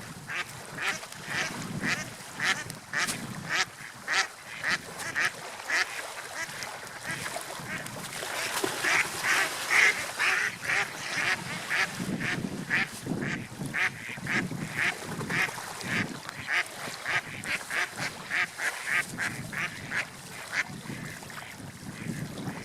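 A long run of short, repeated animal calls, about two or three a second, over a faint steady background noise.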